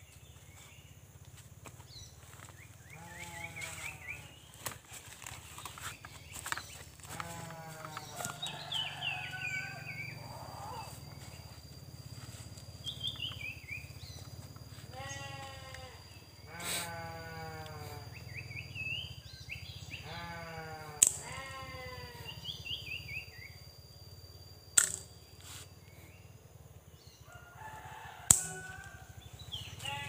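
Animal calls: series of quick notes falling in pitch, repeated every few seconds, with short high chirps between them and a thin steady high tone through the middle. Three sharp knocks stand out in the second half.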